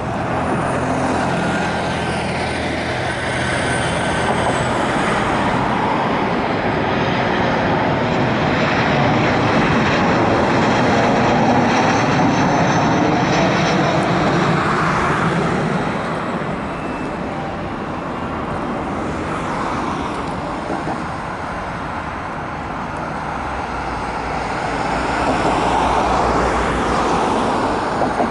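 Boeing 737-700 jet airliner with CFM56-7B turbofan engines on final approach and landing: a continuous jet rumble and whine with slowly sweeping tones, loudest as it passes overhead, easing, then swelling again near the end as it rolls out on the runway.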